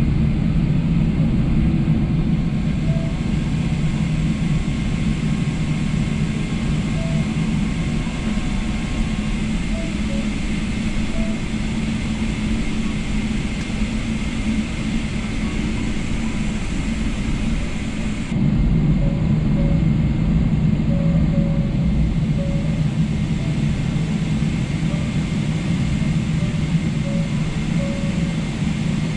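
Cabin noise of a Boeing 777-300ER taxiing slowly on the ground: a steady low rumble with a hiss of cabin air above it. About two-thirds of the way through, the rumble steps up louder and part of the higher hiss drops away.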